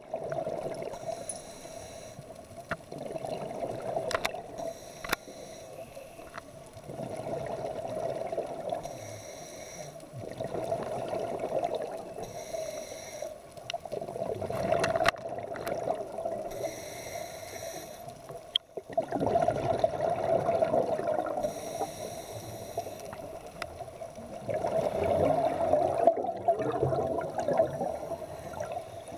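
Scuba diver breathing through a regulator underwater: a short hiss of each inhalation followed by a longer rush of exhaled bubbles, repeating about every four seconds, over a steady low hum.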